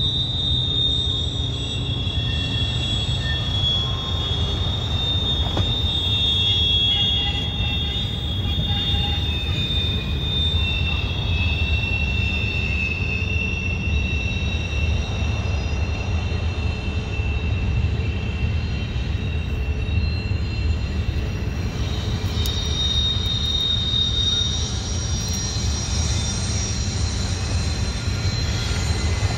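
Cars of an intermodal freight train rolling past with a steady low noise, and high wheel squeal coming and going.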